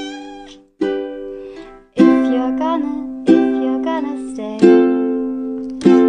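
Background music: a strummed ukulele playing one chord about every second and a quarter, each chord ringing out and fading before the next.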